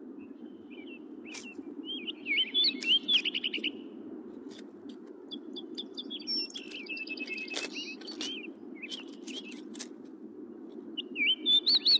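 Songbirds singing: two bursts of quick, warbling chirps and trills, about two seconds in and again about six seconds in, with scattered sharp chip notes between. A steady low background rumble runs under them.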